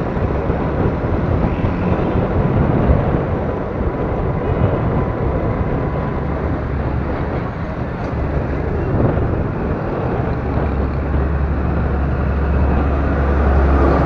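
Steady rumble of travelling along a busy road among motorcycles and traffic: vehicle noise mixed with wind on the microphone. A deeper low rumble builds about ten seconds in.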